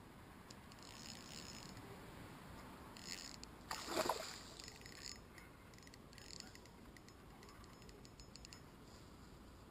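A hooked barbel splashes and thrashes at the water's surface about four seconds in while it is played on the rod. Faint, rapid high ticking comes and goes around it.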